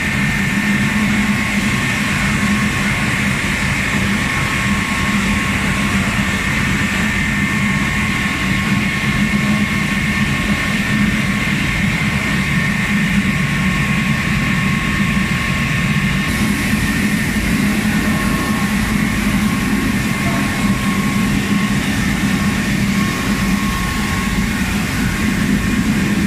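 Rice mill machinery running: a loud, steady mechanical din with a constant low drone and a thinner high whine over it.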